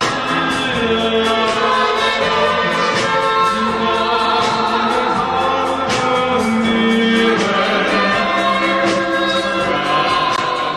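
Live pop band with female vocalists: women singing into microphones over a drum kit, the music running steadily and loudly.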